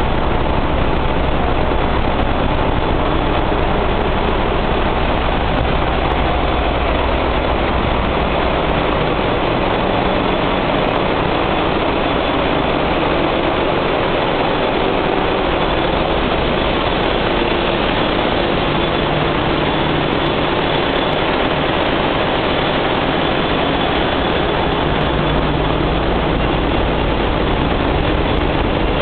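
Large diesel generator engines of a cruise ship's diesel-electric plant running, heard as a loud, steady engine-room din with a deep drone underneath. The deepest part of the drone weakens midway and comes back near the end.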